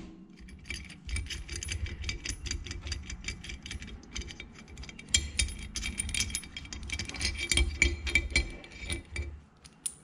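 Nut spun off a threaded steel bolt by hand, a rapid run of small metallic clicks and rattles as the bolt, washer and socket of a bush-pulling rig are taken apart. It stops shortly before the end.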